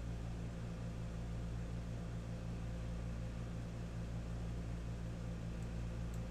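Steady low hum with an even hiss: the background noise of the recording room. Two faint, short clicks come near the end.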